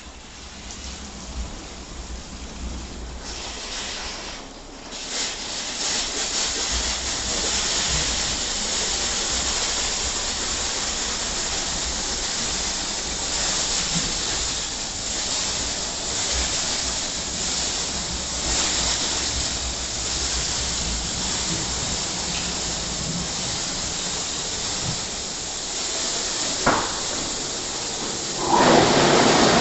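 WashTec SoftCare 2 Pro gantry car wash at work: a steady hiss of water spray and wet rotating brushes on the car, building over the first few seconds. Near the end the spray gets clearly louder.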